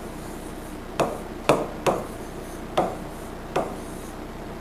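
A stylus tip tapping and clicking on the glass of an interactive smart board as a word is hand-written: about five short sharp taps at uneven intervals, one at the start of each pen stroke.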